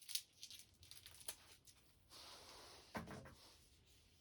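Faint handling noise from removing a tag from a vacuum handle: a few light clicks and rustles, a brief rustle about two seconds in, then a soft knock about three seconds in.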